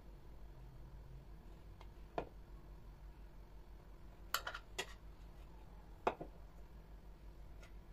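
Metal spoon clinking lightly against glass as cake crumbs are scooped and sprinkled: about five short clinks, the sharpest about six seconds in, over a faint low hum.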